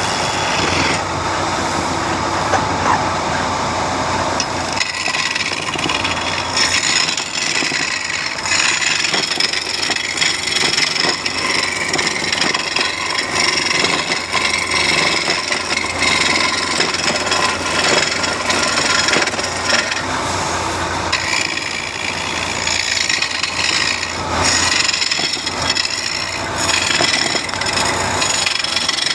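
A woodworking machine cutting wood with a continuous rasping, sawing noise. The texture changes about five seconds in and again about twenty-one seconds in.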